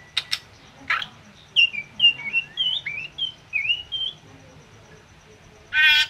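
Caged drongo singing. A couple of sharp clicks and a harsh note lead into a run of short, swooping whistled notes, and a loud harsh call comes near the end.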